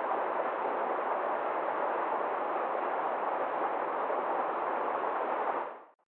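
Forest stream rushing over small rocky cascades: a steady sound of running water that fades out near the end.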